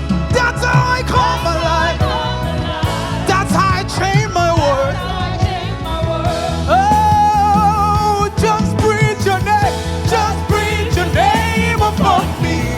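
Live gospel praise-and-worship music: a singer's voice with vibrato, including one long held note a little before the middle, over the accompanying band.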